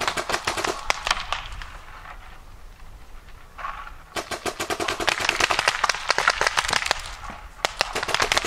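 Paintball markers firing rapid, overlapping volleys of sharp pops. The firing thins out for a couple of seconds about two seconds in, then picks up heavily again.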